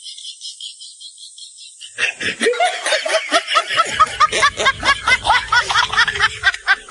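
A quick, high rattling ticking for about two seconds, then a sly snickering laugh: a rapid run of short "heh-heh" notes, about five a second.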